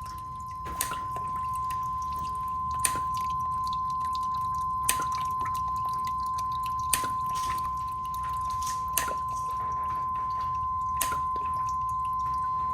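A sine-wave generator's steady tone at about 1 kHz, above the 500 Hz threshold that switches the fountain's pump off and opens its valve, with sharp water drips about every two seconds as the top basin drains, over a low hum.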